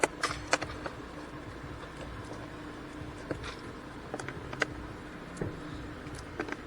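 Scattered light clicks and knocks of hand tools and bolts while a replacement blower motor is fastened in under the dashboard, over the steady hum of the 2017 GMC Terrain's engine idling.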